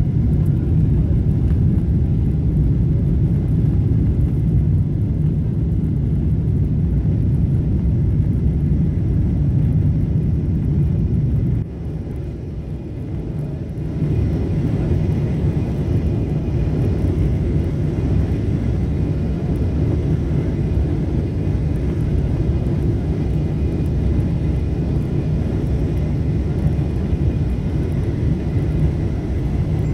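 Airliner cabin noise from a window seat over the wing: a steady low rumble of the jet engines and the aircraft rolling on the runway. About twelve seconds in the sound dips briefly, then comes back with more hiss, as the engines spool up for the takeoff roll.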